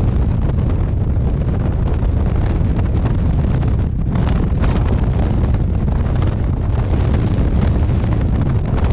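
Steady, loud wind buffeting on the microphone of a moving vehicle, heavy in the low rumble.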